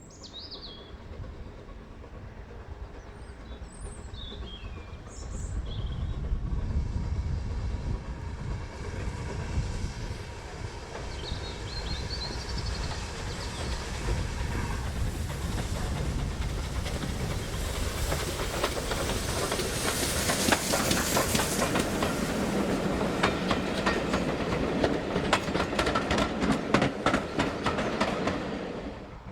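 A train passing: a low rumble builds, then fast clicking of wheels over rail joints grows louder through the second half and stops abruptly near the end. Birds chirp in the first few seconds.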